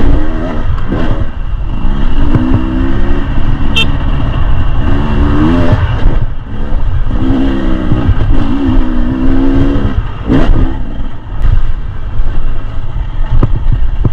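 A 2023 Beta 300 RR Race Edition two-stroke enduro motorcycle being ridden, its engine revving up and falling back in repeated surges as the throttle is worked, over a dense low rumble.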